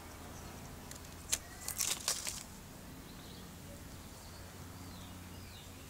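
A sharp click about a second and a half in, then a short crackle of dry leaves being disturbed, over a faint steady low hum.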